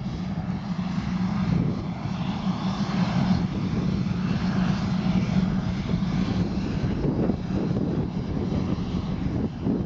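Gulfstream IV business jet's two rear-mounted Rolls-Royce Tay turbofans running at low power as the jet taxis: a steady low hum with a broad rushing noise above it, swelling slightly in the middle.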